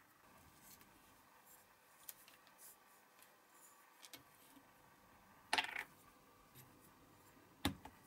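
Small parts and tools handled on a workbench: faint scattered clicks, then two louder clacks about two seconds apart, the second a single sharp knock.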